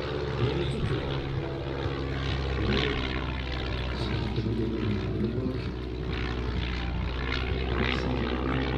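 Stampe SV-4C biplane's 140 hp inverted four-cylinder Renault engine and propeller droning steadily as it flies past in display.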